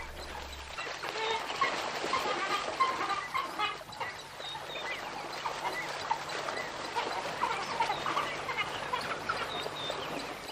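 A pack of African wild dogs twittering and chirping, many short, high, bird-like calls overlapping throughout, the excited social calls they make while playing together.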